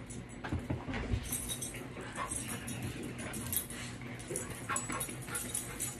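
Dogs playing on a bed: short whimpers, with rustling of bedding and light jingling.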